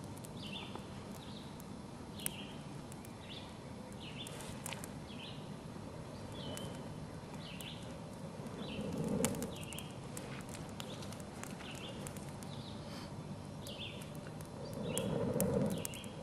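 A bird chirping over and over, one short high chirp roughly every half second to second, with faint crackling from a small fire of pine needles and twigs. Two brief low rushes, each about a second long, come just past the middle and near the end.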